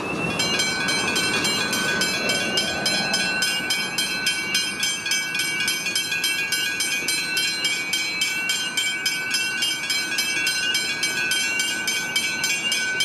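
Railway level-crossing electronic bells ringing in a fast, even beat over steady tones, with a train running past beneath them.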